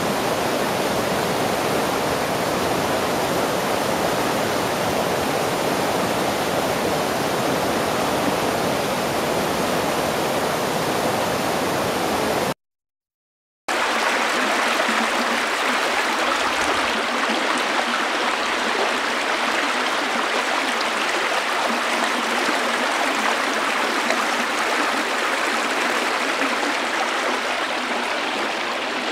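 Steady rushing of river water. About halfway through it cuts to a second of silence, then a second river recording starts, with less bass and more hiss.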